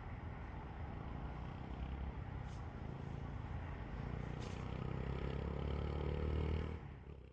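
Low, steady rumble of vehicle traffic, with an engine hum that rises slightly in the second half and a few faint ticks, fading out near the end.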